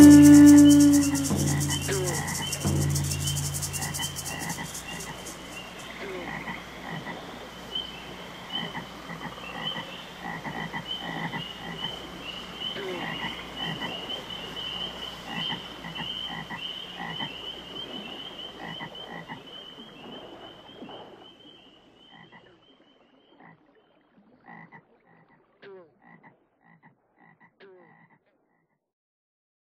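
A chorus of frogs croaking, with many short repeated calls under a steady high trill. It fades out about twenty seconds in, leaving a few scattered croaks. The last held notes of music die away during the first few seconds.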